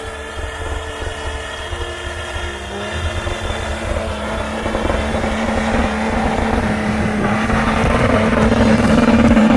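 A Nissan Patrol SUV's engine pulling hard under throttle as it climbs through snow, its note holding steady and growing louder as it comes up close.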